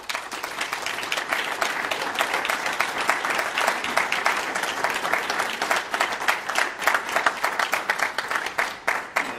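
Audience applauding steadily, many hands clapping at once, welcoming a speaker who has just been introduced. It starts all at once and dies away near the end.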